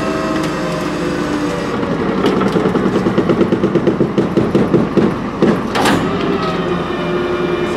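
Leach Sanicruiser rear-loading garbage truck running as a dumpster is tipped into its hopper: a steady engine hum, a rapid pulsing rattle of about eight beats a second in the middle, and a short sharp burst of noise near the end.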